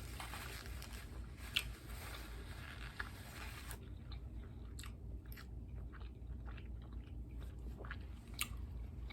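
A person biting into and chewing a taco close to the microphone, with soft crunches and scattered sharp mouth clicks.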